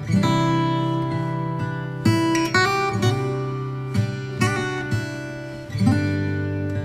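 Background music: acoustic guitar strumming chords, with a fresh chord struck every second or two.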